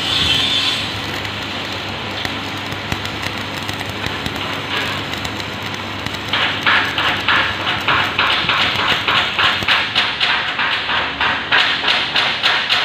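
Stick-welding arc crackling and sizzling steadily as the electrode burns. About six seconds in, a sharp rhythmic pulsing of about four beats a second takes over and runs to the end.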